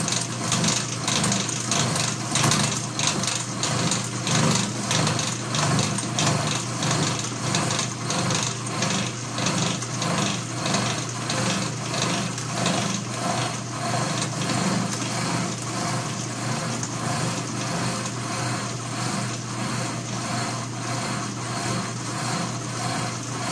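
Atlas horizontal milling machine cutting a slot in a stainless steel piston valve as the knee is fed up by hand: a steady motor hum under a rhythmic cutting noise that pulses about twice a second. The cut is going smoothly and sounds great, a sign the depth of cut suits the machine.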